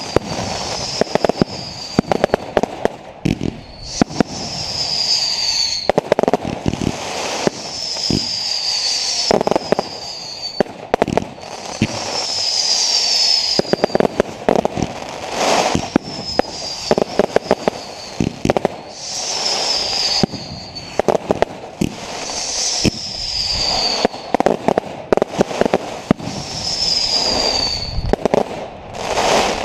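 Fireworks going off in a continuous barrage: dense crackling and popping, a short high whistle falling in pitch every few seconds, and a few heavier bangs.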